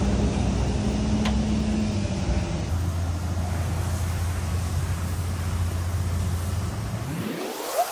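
A steady low engine-like drone whose hum drops to a lower pitch a few seconds in, then rises quickly in pitch near the end.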